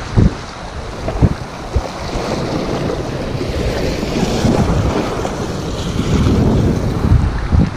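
Sea waves washing over shore rocks, with wind buffeting the microphone and a few short knocks.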